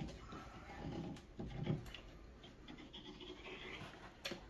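Caulking gun pressing a bead of construction adhesive into a wall corner, with faint scraping and rubbing of the nozzle along the joint. A single sharp click comes near the end.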